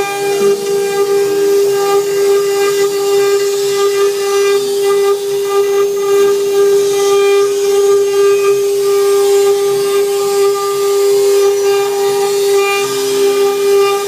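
CNC wood-carving router's spindle running at a constant speed: a steady, high-pitched whine with a hiss over it.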